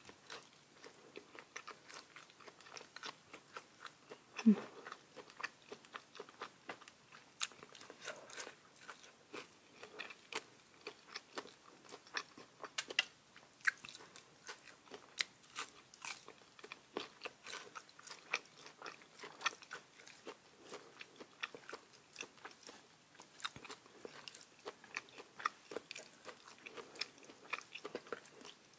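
A person chewing and biting crisp food, a long irregular run of small crunches and mouth clicks with short pauses, plus one louder sound about four and a half seconds in.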